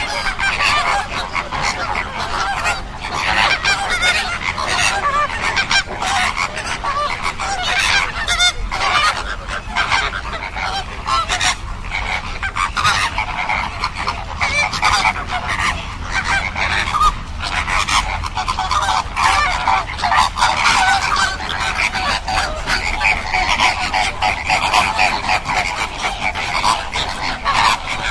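A large flock of flamingos calling, many goose-like honks overlapping without a pause.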